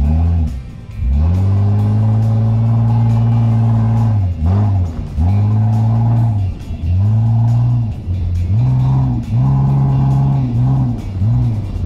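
Mitsubishi Pajero's engine revving hard in the soft sand of the dunes: the revs climb quickly and hold, then drop away, again and again, with one long surge and then a run of shorter bursts of throttle.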